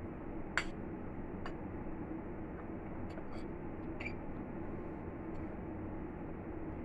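Metal spoon clinking and scraping against a plate while scooping food: several light clinks, the sharpest about half a second in, over steady room noise.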